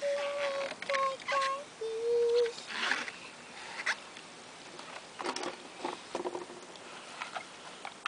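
A toddler girl singing a children's song in four short, high held notes, followed by quieter vocal sounds and a few light knocks.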